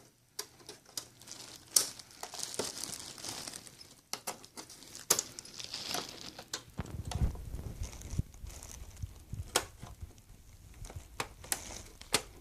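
Sharp plastic clicks and scraping as the Xbox 360 case's clips are pried and unhooked with a blade, with dull handling bumps about seven seconds in.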